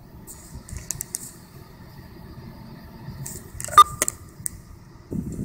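3D printer running during a slow bridging pass, its cooling blower fan giving a steady low hum, with scattered small clicks and one sharp click about four seconds in.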